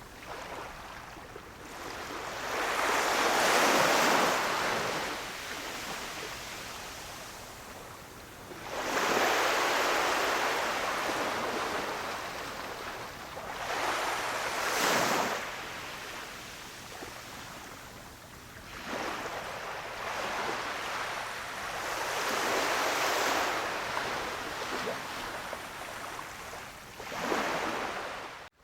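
Waves washing onto a beach: a hissing surge of surf swells and ebbs about five times, one wave every four to six seconds. The sound cuts out for an instant right at the end.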